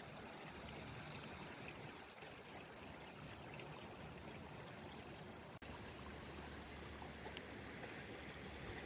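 Small rocky stream running, a steady rush of water, with a momentary dropout a little past halfway.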